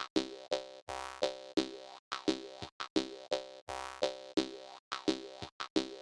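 Jaw harp music: plucked, buzzing notes rich in overtones in a steady, danceable rhythm, about three plucks a second.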